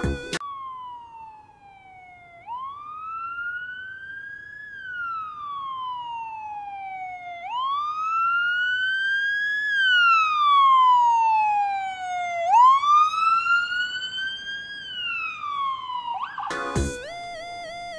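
Ambulance siren wailing: a slow rise and fall in pitch, about five seconds per cycle, three full rises, cut off near the end as music comes back in.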